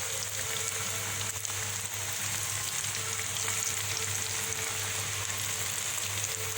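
Breaded chicken strips deep-frying in hot oil: a steady, dense sizzle with fine crackling.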